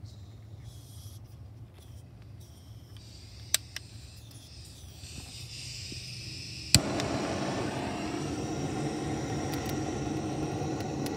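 Handheld butane chef's torch lit against lump charcoal: two short clicks a few seconds in, then a sharp igniter click at about six and a half seconds and the flame catches, hissing loudly and steadily.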